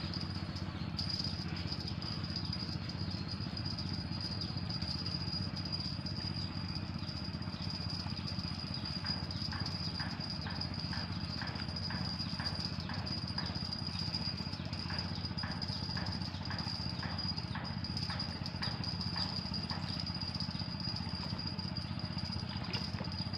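Spinning fishing reel being wound in on a hooked fish, its handle clicking about three times a second for several seconds in the middle. Under it run a steady low rumble of wind and river and a thin, steady high whine.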